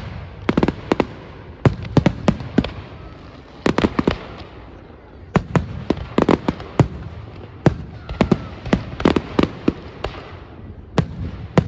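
Aerial fireworks going off in a rapid run of loud bangs and crackling, some single, some in quick clusters of several, with hissing and fizzing between them.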